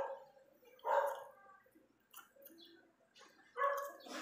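A dog barking: three short barks, two about a second apart at the start and one near the end.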